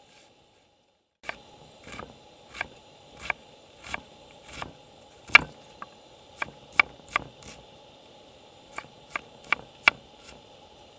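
A run of sharp knocks and taps, roughly one or two a second with uneven spacing, starting after a brief dropout about a second in.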